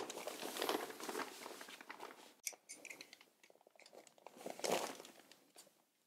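Plastic sheeting crinkling and rustling as it is unfolded and laid flat on a plastic-covered floor, loudest about a second in and again near five seconds in.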